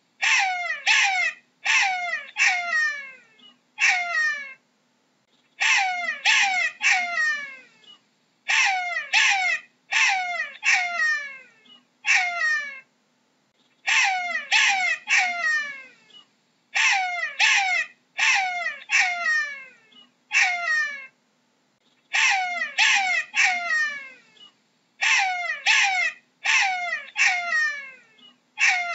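Jackal calling: a run of high, short yelps in groups of one to four, each yelp sliding down in pitch, the groups a second or two apart.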